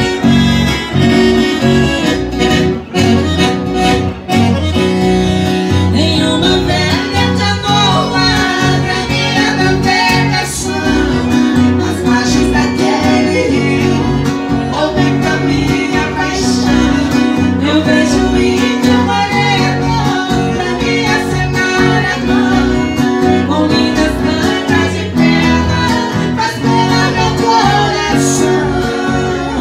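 Sertanejo raiz song played live on a Titano piano accordion, acoustic guitar and bass guitar, with a woman singing the melody.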